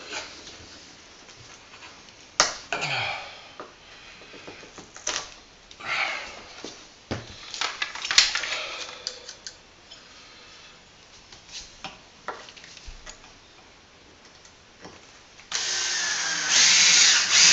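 Scattered handling clicks and scrapes, then about two seconds before the end a cordless drill-driver starts up and runs steadily, driving a screw through a blind bracket into a timber door architrave.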